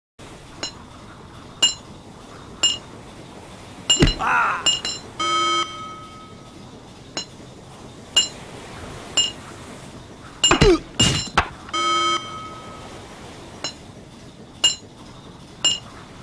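Hammer striking a steel manhole cover: ringing metallic clinks about once a second, with a few heavier thuds followed by falling tones. A short steady pitched tone sounds twice.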